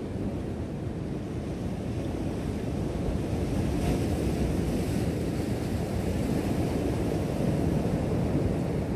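Ocean swell washing against a rock shelf, with wind buffeting the microphone; a wave breaks on the rocks about four seconds in.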